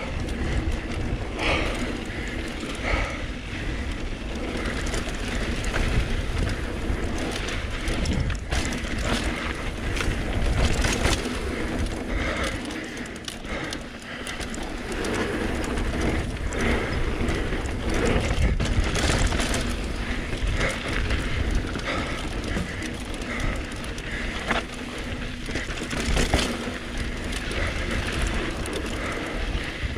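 Mountain bike rolling down a rough downhill trail: the rear freehub ratcheting while coasting, the chain and bike rattling with many sharp clicks over bumps, and tyres on dirt, under a constant low rumble of wind on the camera microphone.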